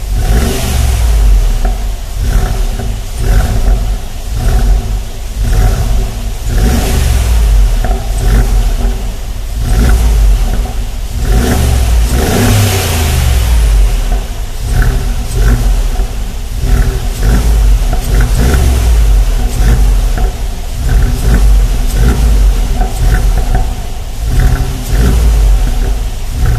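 Mercedes-Benz G500 4x4²'s 4.0-litre twin-turbo V8 revved again and again through its AMG exhaust, the engine note swelling and dropping back with each blip of the throttle.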